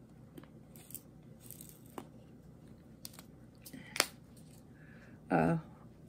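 Quiet handling noise of diamond-painting supplies: scattered light clicks and taps of small plastic pieces as a white plastic diamond tray is set down on the canvas, with the sharpest click about four seconds in. A short, louder noise follows near the end.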